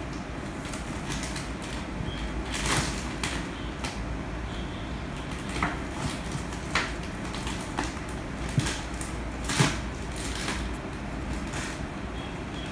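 Steady low room hum with a few sharp clicks and knocks scattered through, the loudest about two thirds of the way in.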